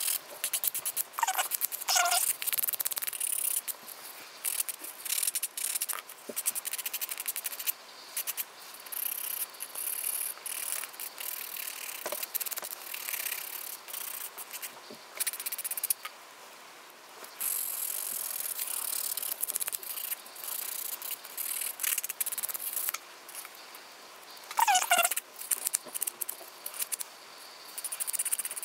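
Nail buffer block rubbing back and forth over a fingernail: a dry, scratchy rasping in quick strokes. Short squeaks come about two seconds in and again near the end.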